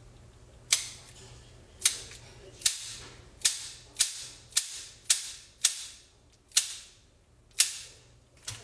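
Kitchen scissors snipping over a pot: eleven sharp snips, roughly one a second, the last one softer.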